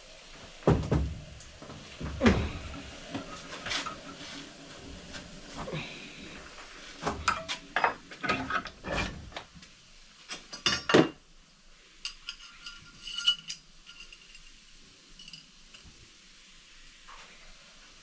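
Metal clinking and knocking as a small brass bush is worked open with a piece of steel: a run of sharp, irregular knocks and clinks, the loudest about two seconds in and around eleven seconds, then a few lighter ringing clinks.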